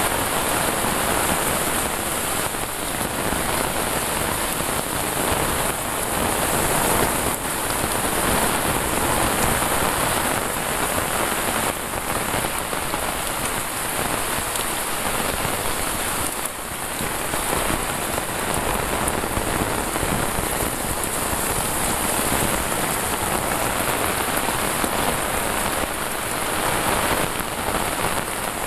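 Heavy rain falling steadily, a dense even hiss of drops on roofs and wet ground.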